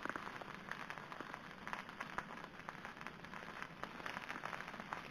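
Beaten egg sizzling and crackling faintly as it cooks on banana leaves in an oiled wok while a spoon stirs it; the egg is part set, part still runny.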